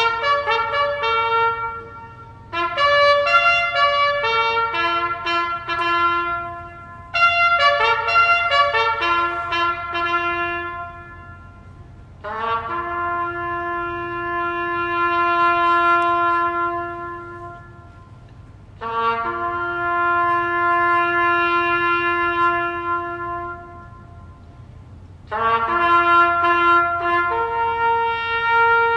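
Solo trumpet playing a slow bugle call: phrases of short notes that settle onto long held notes, with brief pauses between phrases.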